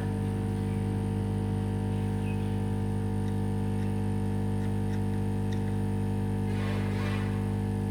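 Steady electrical mains hum with a stack of buzzing overtones, unchanging throughout. A brief faint rustle comes near the end.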